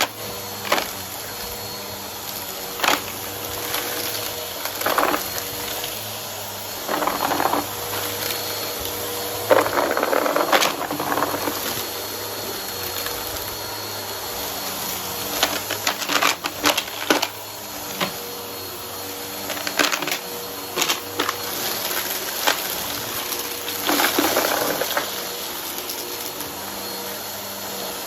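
Vacuum cleaner running steadily with its brushroll on, sucking up a pile of crunchy debris: irregular sharp clicks and short crackling bursts of bits being picked up over the motor's steady hum.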